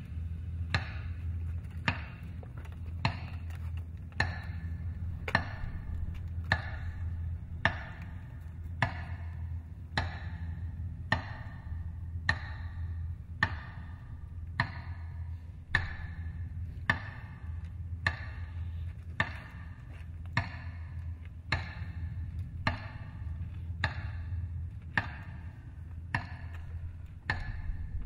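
A metronome ticking slowly and evenly over loudspeakers, about one tick a second with a short echo after each, marking a minute of silence. A steady low hum lies underneath.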